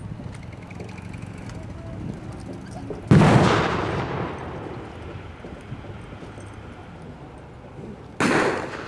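Two loud simulated battlefield explosions about five seconds apart, each dying away in a rolling echo across open ground; the first is the louder.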